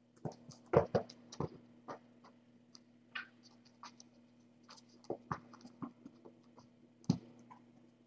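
Kittens playing and scrambling about: irregular scratching, tapping and soft knocks, loudest about a second in and again near the end.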